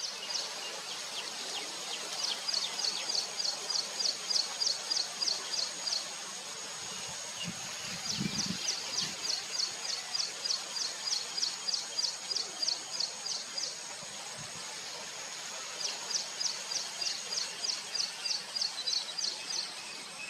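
Outdoor animal ambience: rapid high-pitched pulsing calls, about four a second, come in three runs of several seconds each over a steady high-pitched whine. A few low thuds fall near the middle.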